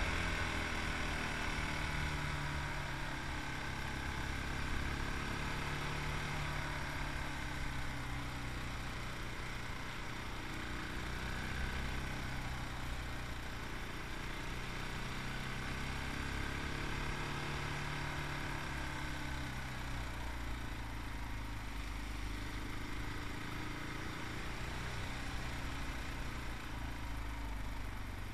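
Yamaha MT-03 motorcycle's 660cc single-cylinder engine running on the move, its revs rising and easing off several times.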